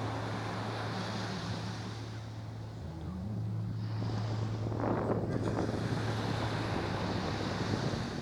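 Sea waves washing in, with wind buffeting the microphone, over a steady low hum; a louder surge of water comes about five seconds in.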